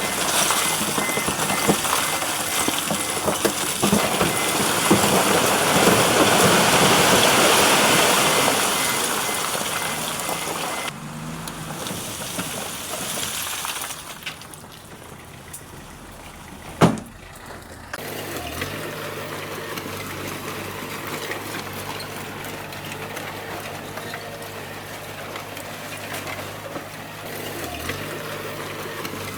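Bulldozer at work pushing stone: a loud rushing, clattering noise for the first ten seconds or so, one sharp knock about seventeen seconds in, then the engine running steadily.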